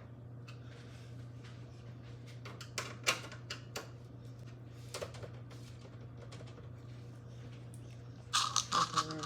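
Scattered small clicks and taps of hardware being handled while case fans are fitted and screwed into a PC case, over a faint steady low hum. A quick run of louder clicks and rattling comes near the end.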